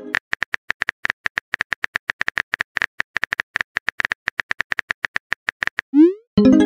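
Rapid simulated phone-keyboard typing clicks, about seven or eight a second and evenly spaced. Near the end a quick rising swoosh and then a chime sound as the message is sent.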